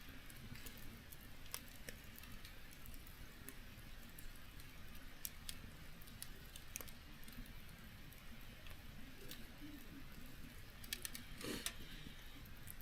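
Wood fire crackling faintly: scattered sharp pops and ticks over a low steady hiss, with a somewhat louder crackle near the end.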